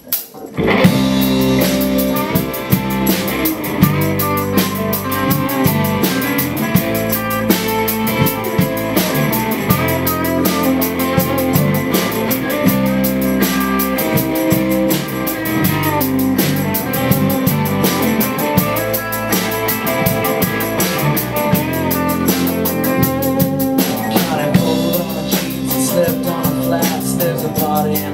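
Live rock band playing at full volume: drum kit, electric and acoustic guitars and bass guitar, kicking in abruptly at the start.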